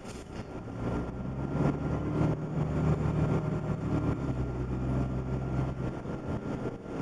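1998 New Flyer D30LF diesel transit bus heard from inside while under way: the engine's low drone swells about a second in and holds, drops in pitch about four seconds in, and eases off near the end, over road noise and small interior rattles.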